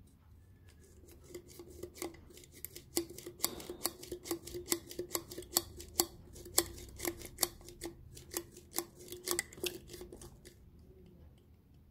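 Quick, sharp clicks, about three or four a second, of a rod pressing and scraping a new oiled seal into place on a plastic oil pickup tube. They start about a second in and stop shortly before the end.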